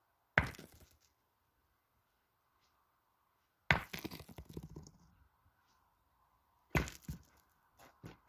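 Steel pétanque boules being shot at a target boule: three sharp metallic impacts about three seconds apart. The second is followed by about a second of smaller knocks and rolling, and the third by a few light clicks.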